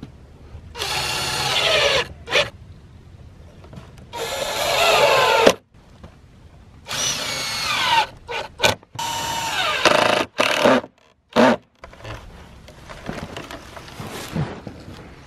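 Cordless drill-driver driving stainless steel screws through brackets into cedar boards: four runs of a second or more, the motor's pitch dropping as each screw pulls tight, with short trigger blips in between. Lighter handling noise of the boards follows over the last few seconds.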